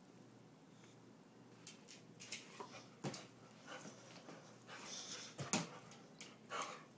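Young American pit bull terrier making a string of short whines and yips, starting about a second and a half in, with two sharp knocks among them, the louder one past halfway.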